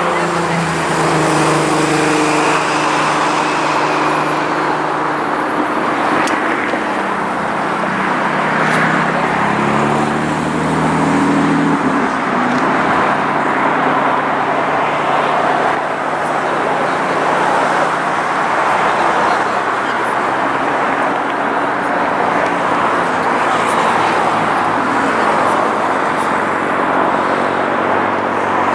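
The GE GEnx engines of a Boeing 747-8 running as it turns onto the runway and lines up: a steady, loud jet noise with engine tones that waver and slide in pitch during roughly the first twelve seconds, then hold steady.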